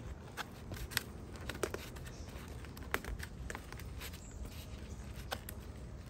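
Faint, irregular clicks and crinkles of a plastic-coated wire being twisted and handled by hand around a funny-pipe sleeve on a trunk.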